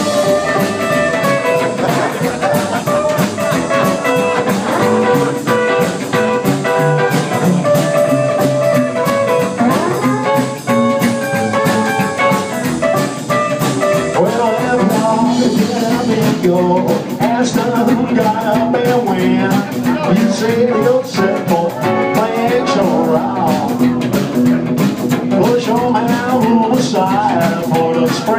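Live band playing: electric guitar, upright double bass and drum kit together.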